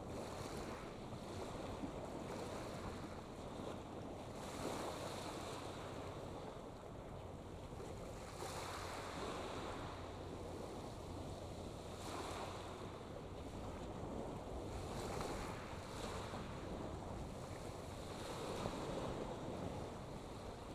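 Wind buffeting the microphone and water washing, swelling and easing every few seconds, over a faint steady low hum.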